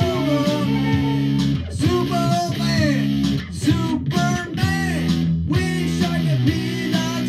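Electric guitars played live in a rock riff of sustained chords, with several short stops in the riff.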